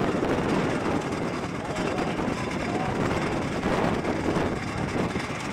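Antique tractor engines running steadily, with indistinct voices underneath.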